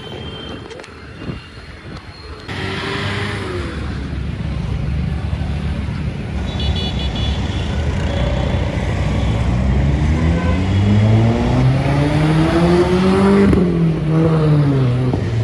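Volkswagen Vento with a loud aftermarket exhaust accelerating. Its engine note climbs steadily in pitch for several seconds, drops sharply at a gear change or lift-off, then rises and falls once more.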